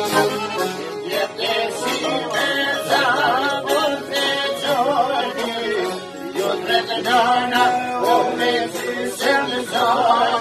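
Live Albanian folk music: an accordion, a violin and long-necked plucked lutes play a tune together, with a man singing over them.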